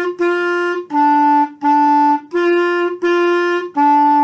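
Clarinet playing a repeated two-note pattern in short separate notes: two on the higher note (so), two on the lower (mi), then the higher pair again and the start of the lower pair.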